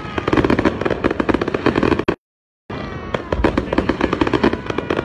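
Aerial fireworks crackling and popping in a rapid, dense barrage. The sound cuts out completely for about half a second a little after two seconds in, then the crackling carries on.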